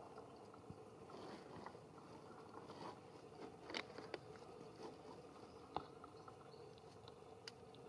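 Near silence: faint outdoor ambience with a low steady hum and a few soft clicks and rustles. The sharpest click comes in the middle and another about two-thirds of the way in.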